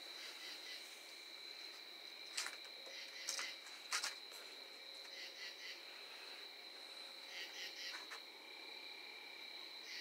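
Crickets chirring steadily and faintly in a high, continuous trill. A few short clicks come a little over two seconds in, around four seconds in, and again shortly before the end.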